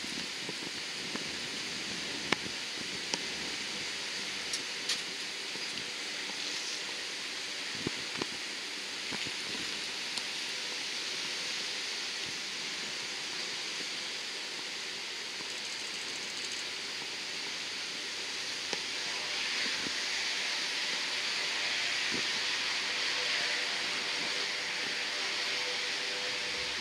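Lockheed Martin HC-130J's four Rolls-Royce AE 2100 turboprops running as the aircraft taxis: a steady hissing turbine and propeller noise that grows louder about two-thirds of the way through. A few sharp clicks come in the first ten seconds.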